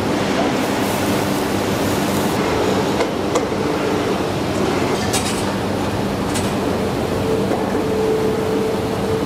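Steady factory machinery noise with a low hum, broken by a few light metallic clinks.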